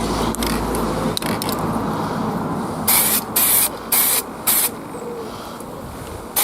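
Aerosol spray paint can hissing in four short bursts about half a second apart, starting about three seconds in. A low hum stops about a second in.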